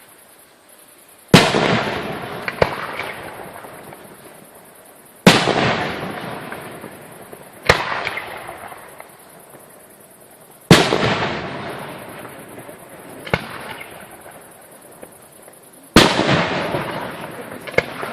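Aerial fireworks shells bursting in the sky: four loud bangs about five seconds apart, each followed a second or two later by a smaller bang, and each bang trailing off over several seconds.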